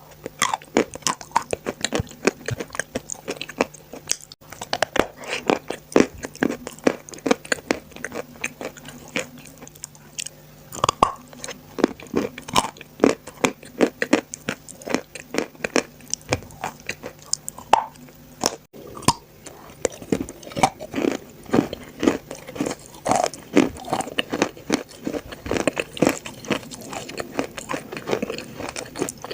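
Edible chalk being bitten and chewed close to the microphone: a continuous, irregular run of crisp crunches.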